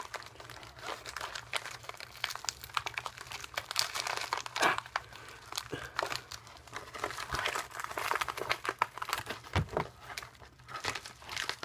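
Plastic packaging rustling and crackling as it is handled and worked open by hand, with irregular small clicks and crackles throughout.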